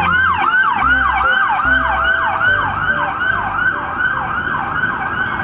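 Police siren sound in a fast yelp: one tone sweeping quickly up and then down, about three times a second, steady throughout.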